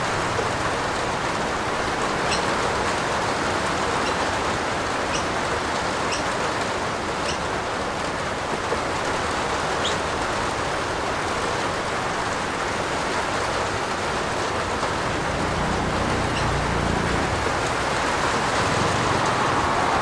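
Steady rain falling on a roof, with scattered sharp drop ticks. A low rumble builds in during the last few seconds.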